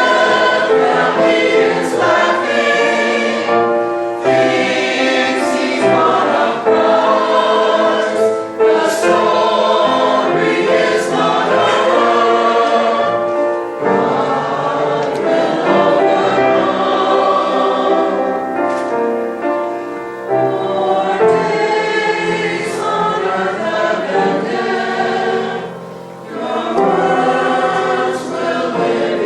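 Choir singing a slow sacred cantata piece in several parts, with a short pause between phrases near the end.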